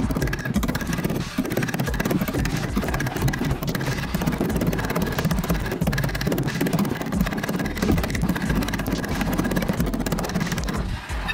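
Body file rasping across the bare steel of a 1972 Holden Torana's quarter panel in continuous strokes, file finishing: the file shaves the high spots to a fine powder and skips the low spots, showing where the metal still needs bringing up. The rasping eases off near the end.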